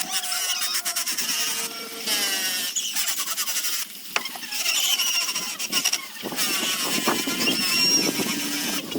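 A woodworking tool working zelkova wood with a scratchy, squealing sound. High squeals wander in pitch and break off briefly a few times.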